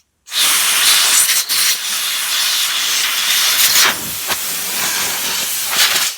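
Compressed-air blow gun hissing loudly and steadily as air is blown into the brake-line port of a wheel cylinder to force out its seized piston, with two brief dips in the flow. The blow gun is malfunctioning, so the air is not pushing the piston out.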